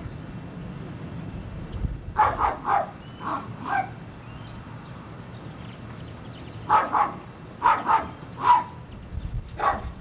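A dog barking in short, sharp barks, in two bouts: a quick run of barks about two seconds in, and a few more spaced barks from about seven seconds in.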